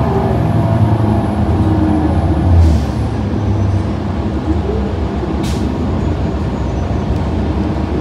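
Interior noise of a New Flyer Xcelsior XD40 diesel bus under way, its Cummins L9 engine and Allison B400R transmission running steadily. Two short hisses come about two and a half and five and a half seconds in.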